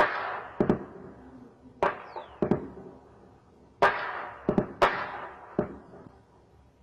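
Gunfire: about ten shots, singly and in quick pairs, each a sharp crack that rolls off into a long echo. A short falling whine comes about two seconds in.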